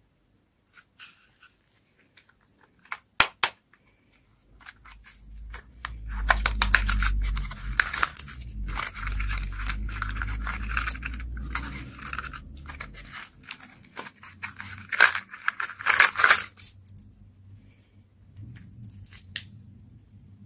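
Hands opening a small cardboard toy box and handling its wrapper: crinkling, tearing and rustling with a dull rumble of handling. There are a few sharp clicks about three seconds in, and the loudest crackling comes around fifteen to sixteen seconds.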